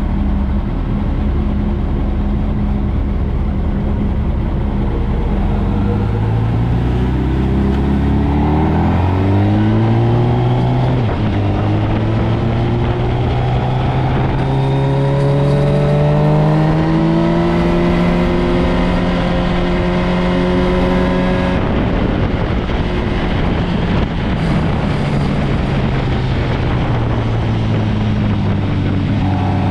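Motorcycle engine on a race track, its note climbing hard for about fifteen seconds with one brief dip partway, typical of accelerating and shifting up, then dropping suddenly as the throttle is closed and settling to a lower steady note. A steady rush of noise runs underneath.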